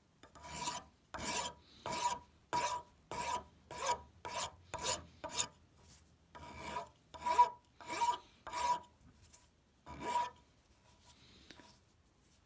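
Rasp strokes over the end of the hickory handle where it comes through the hammer head's eye, about fourteen scrapes at roughly two a second, each with a slight ring. The strokes pause briefly twice and stop about ten seconds in.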